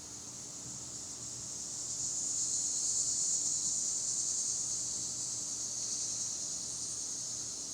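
Summer insect chorus: a steady, high-pitched buzzing drone that swells louder about two seconds in and slowly eases off.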